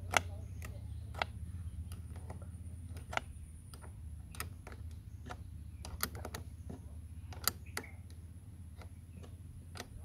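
Open-ended spanner working a car battery terminal clamp nut, metal on metal, giving a dozen or so irregular sharp clicks as the wrench is turned and refitted on the nut. A steady low hum runs underneath.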